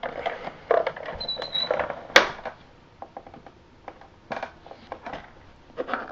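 Plastic housing of a cordless vacuum's base unit being handled and pried at: scattered clicks, knocks and scrapes, with a brief high squeak a little after a second in and the sharpest knock about two seconds in. The housing is not coming apart.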